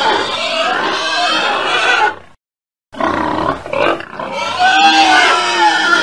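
Piglets squealing and grunting in two short stretches, split by a brief silent break about two and a half seconds in.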